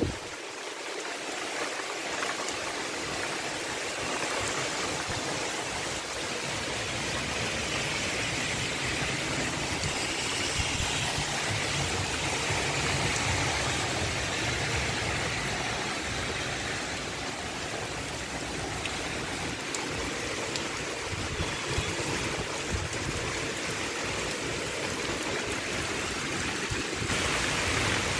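Heavy rain pouring down in a dense, steady hiss.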